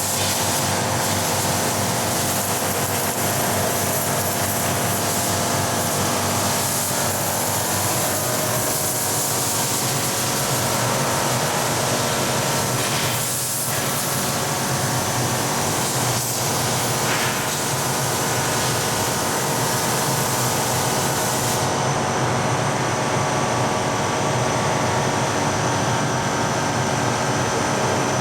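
Steady machine noise: a continuous hum under a loud hiss, with no pause.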